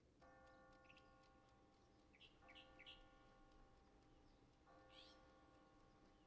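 Near silence: a faint pitched tone sounding for about two seconds at a time, roughly every two seconds, with scattered soft high chirps.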